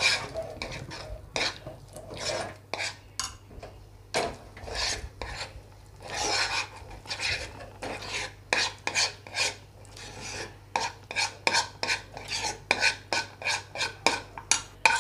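Steel spoon scraping a non-stick frying pan as it stirs crushed cashews through sticky melted-sugar caramel, mixing the caramel crunch. Repeated scraping strokes that come quicker and closer together, about three a second, in the second half.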